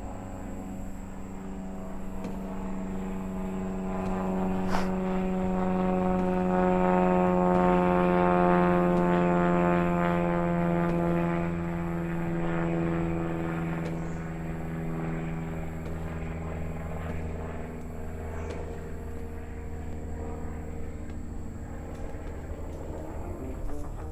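Propeller aircraft flying over: a steady engine drone that swells, peaks around the middle and fades, its pitch sliding slowly downward as it passes.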